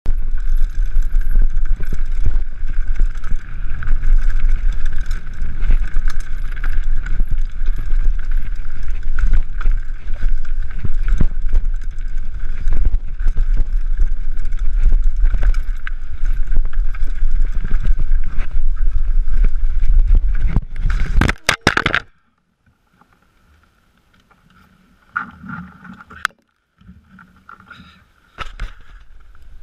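Mountain bike rolling and rattling over stone paving and rock, with a continuous low rumble. About 21 seconds in, a short loud clatter as the bike and rider crash at a rocky drop-off. It is followed by near quiet with a few faint scrapes and knocks.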